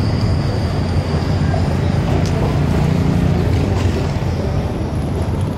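Steady low rumble of outdoor city background noise, with no single event standing out.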